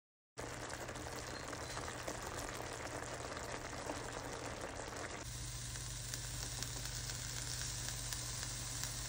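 Food sizzling in a frying pan, a dense crackling hiss that starts abruptly about half a second in. About five seconds in it cuts to frozen sliced bell peppers and onions frying, with a hissier, higher sizzle.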